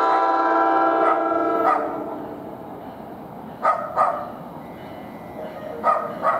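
An approaching train's air horn sounds a chord of several notes that cuts off under two seconds in, leaving a low rumble from the train. Then a dog barks, two quick barks, and again two quick barks near the end.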